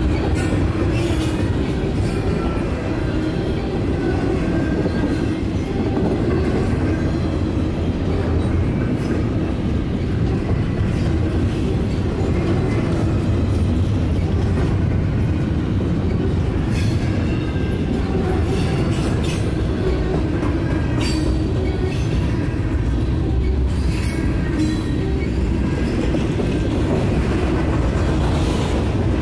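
Canadian National double-stack container freight train rolling past: a steady rumble of well-car wheels on the rails, with a few sharp clicks along the way.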